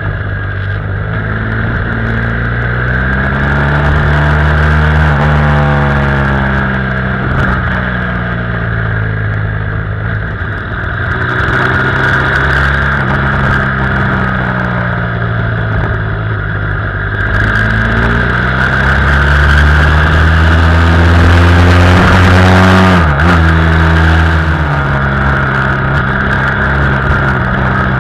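BMW F800R's parallel-twin engine running under way, its pitch rising and falling as the rider accelerates and eases off through the bends, with a quick drop and rise near the end like a gear change. Steady wind rush over the bike-mounted camera.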